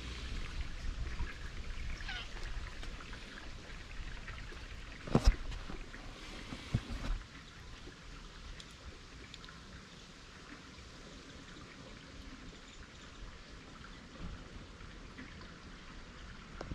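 Steady hiss of background noise, broken by one sharp knock about five seconds in and two softer knocks about a second and a half later.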